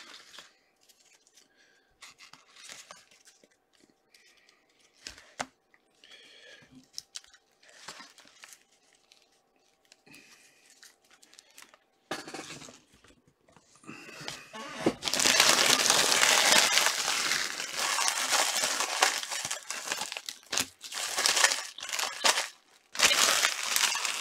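Light handling of trading-card boxes and cards, with a few scattered knocks, through the first half. From about halfway through, trading-card packaging is torn open and crumpled by hand, loudly and continuously.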